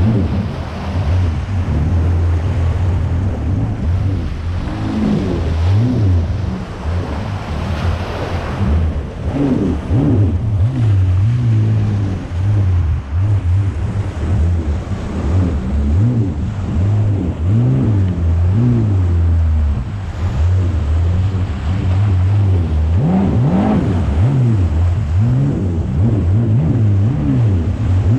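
Yamaha VX Cruiser jet ski engine running under load while towing a boat through chop. Its pitch rises and falls again and again as the revs change, with water splashing and wind on the microphone.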